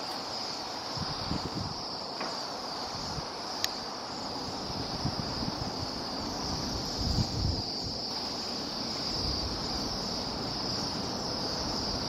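A large flock of Bohemian waxwings calling together, their high trilled calls blending into one steady high-pitched chorus. Low wind rumbles on the microphone come and go, strongest around seven seconds in.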